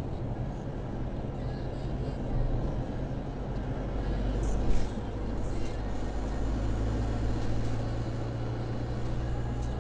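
Steady car engine and road noise heard inside the car's cabin while driving, with a deeper engine tone that strengthens a little in the second half. There is a short knock about halfway through.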